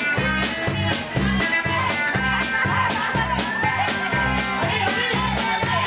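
A live band playing blues-rock: electric guitar over a steady bass beat.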